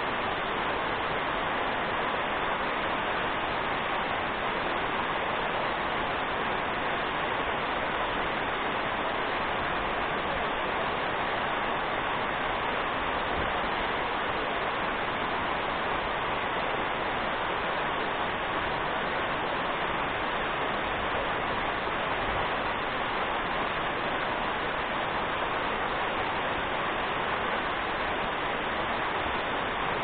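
Waterfall cascading down rock slabs: a steady, unbroken rush of falling water.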